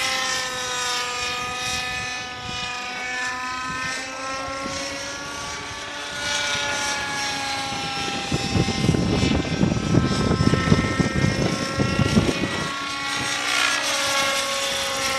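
Radio-controlled model helicopter flying, its rotor and drive giving a steady tone that slowly rises and falls in pitch as it manoeuvres. Partway through, a few seconds of gusty wind buffeting the microphone rumble over it.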